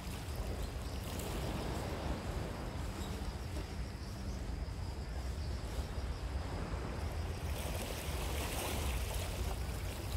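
Wind buffeting the microphone with a low rumble, over the wash of sea waves; about seven and a half seconds in a brighter hissing rush grows louder.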